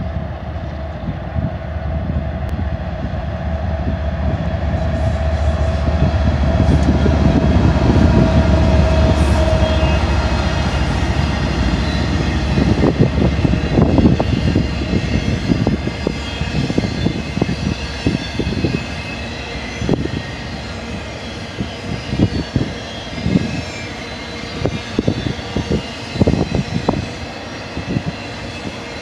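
A BNSF freight train's two GE diesel locomotives, an ES44C4 leading a Dash 9-44CW, approach and pass with a deep engine drone and a steady whine, loudest about halfway through. After them the empty spine cars roll by with irregular clanks and rattles of wheels and couplers.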